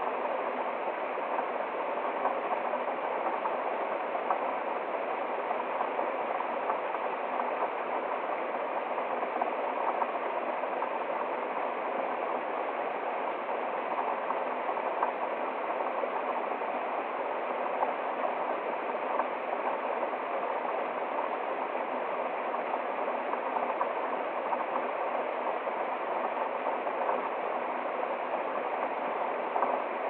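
Water of a small woodland waterfall and stream splashing over rocks: a steady rushing with small irregular splashes.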